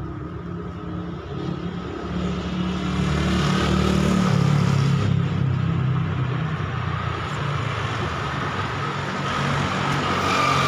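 Passing road traffic: a motor vehicle's engine hum that grows louder about two seconds in and keeps going.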